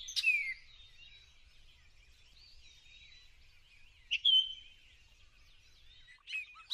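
Forest birds calling: a loud whistled call falling in pitch at the start, another whistle about four seconds in, faint thin notes between, and a quick run of chirps near the end.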